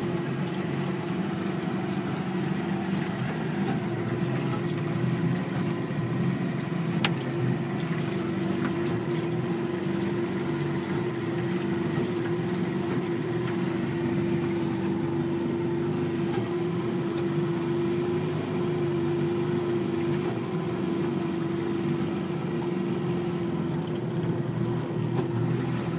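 Outboard motor running at a steady speed, driving a small open boat across a lake, heard from on board as an even hum that holds one pitch.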